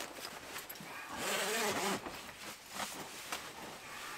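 Sleeping bag's nylon shell rustling and swishing as a person pulls it up and settles down inside it. The sound is loudest for about a second, starting about a second in.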